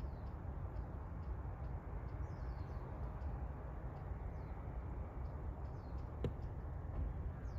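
Harbour ambience: a steady low rumble, with a few faint, short, falling bird chirps and a single sharp click about six seconds in.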